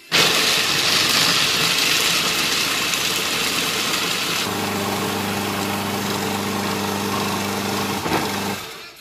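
Electric food processor running, its blade grinding roasted almonds and sesame seeds into meal. It starts with a loud, gritty grinding; about halfway through the harsh part drops away, leaving a steadier motor hum, and it switches off shortly before the end.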